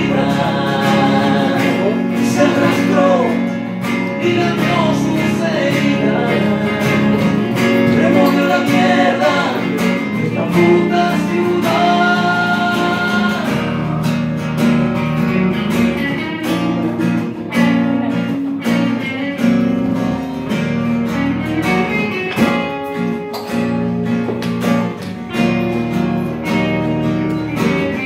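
Live song played on an acoustic guitar and a semi-hollow electric guitar, with a man singing over them. The singing is mostly in the first half; after that the two guitars carry on with a plucked instrumental passage.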